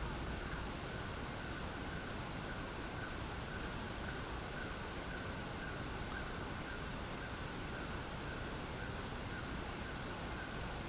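Light rain falling steadily as an even hiss, over a continuous high-pitched insect trill that breaks off briefly now and then.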